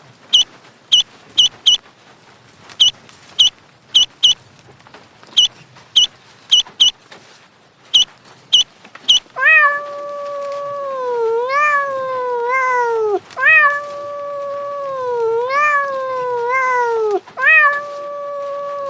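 A run of short, very high-pitched squeaks, often in quick pairs. About halfway through, a cat takes over with long, drawn-out yowls, each lasting three to four seconds and bending up and down in pitch, one after another with barely a break.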